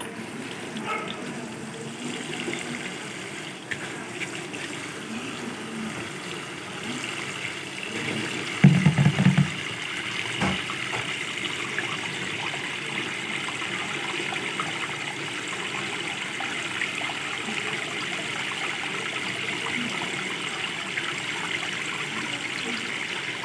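Tap water running in a steady stream into a plastic bowl of uncooked rice, rinsing the rice. A short, loud low thump about nine seconds in.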